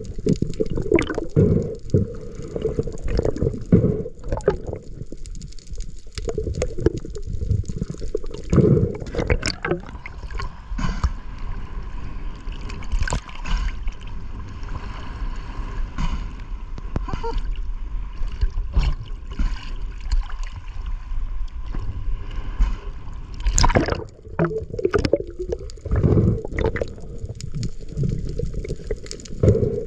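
Sea water sloshing, splashing and gurgling around a camera going in and out of choppy waves, muffled when under the surface, with many irregular splashes and knocks.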